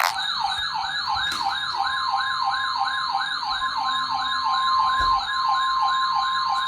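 Emergency alert siren tone for a severe thunderstorm warning: a fast yelp sweeping up and down about four times a second. About a second in, a steady single-pitch alarm tone joins it.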